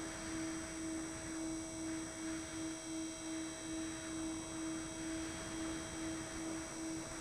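Twin electric brushless motors and props of a Multiplex Twin Star II in flight, a steady droning tone that pulses a few times a second, over a hiss that swells and fades.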